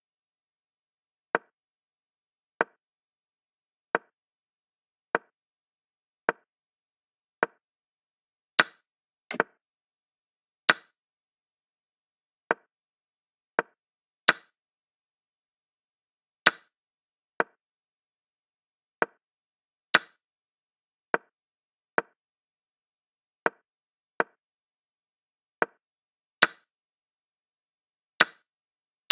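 Chess program move sound effects: about two dozen short wooden clicks, one per move, roughly one a second. Seven captures are louder, brighter snaps, and castling is a quick double click.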